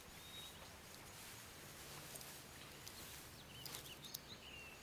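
Faint outdoor ambience with a few short bird chirps, mostly in the second half, and a few faint clicks.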